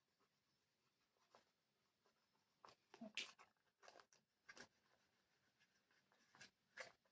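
Faint, short wiping strokes rubbing over a small object, about seven irregular strokes, the loudest about three seconds in.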